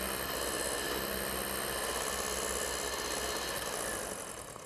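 Electric hand mixer running steadily, its beaters whisking egg-and-banana batter in a glass bowl; the motor sound fades away near the end.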